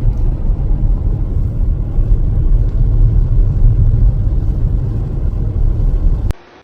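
A loud, steady low rumble that cuts off abruptly near the end.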